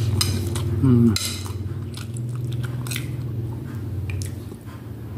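A metal spoon clinks against a ceramic plate as rice is scooped up and eaten, over a steady low hum. About a second in comes a short voiced sound that falls in pitch, the loudest moment.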